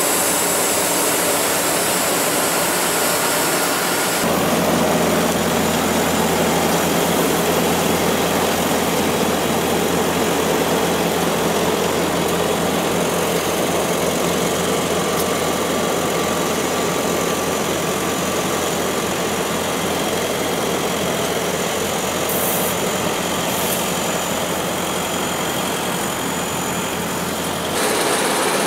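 Diesel engines of asphalt paving machines running steadily: a Vögele asphalt paver at the start and end, and a rubber-tyred road roller in between. The sound changes abruptly about four seconds in and again near the end.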